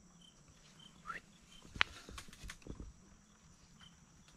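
Quiet woods: faint short chirps repeating about every half second, a brief rising bird-like call about a second in, and one sharp click just before two seconds, followed by soft rustling ticks.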